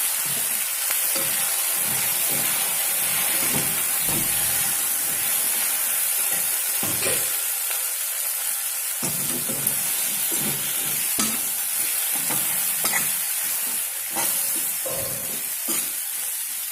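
Cut okra frying in hot oil and spice masala in a kadhai, sizzling steadily while being stirred, with irregular scrapes and knocks of the spoon against the pan.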